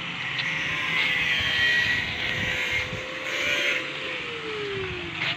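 A motor running at a steady pitch, its pitch dropping smoothly near the end.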